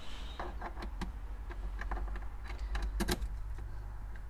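Light scattered clicks and rattles of a key being worked in the glove compartment lock of a 1994–2004 Ford Mustang, with a sharper double click about three seconds in. The key will not operate the lock.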